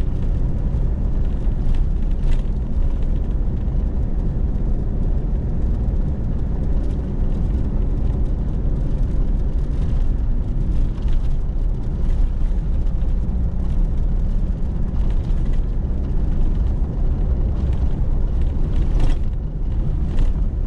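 Steady rumble of a 4x4 being driven along a gravel road, engine and tyres on loose gravel, heard from inside the cab, with a few brief knocks.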